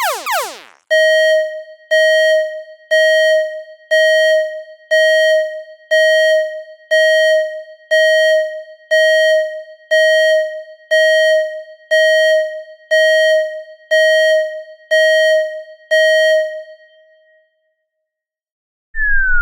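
Electronic alarm tone: one synthetic bell-like note struck about once a second, some sixteen times, each note dying away. Before it the last of a rapidly repeating falling-sweep alarm cuts off, and near the end, after a short silence, a siren starts wailing up and down.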